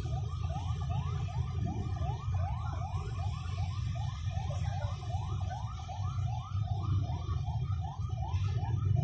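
A siren sounding a fast yelp, a rising wail repeated about four or five times a second, over a steady low rumble.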